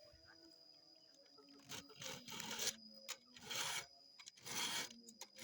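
A file being pushed across the cutter teeth of a chainsaw chain by hand, sharpening it in one direction only: separate scraping strokes about once a second, starting nearly two seconds in.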